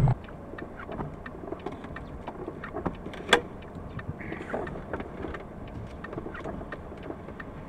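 Low, steady road noise heard inside a moving car through a dashcam, with scattered light ticks and one sharper click a little over three seconds in.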